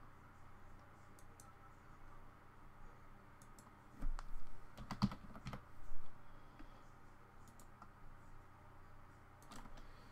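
Typing on a computer keyboard: a short run of keystrokes about four to six seconds in, with a few scattered key or mouse clicks around it.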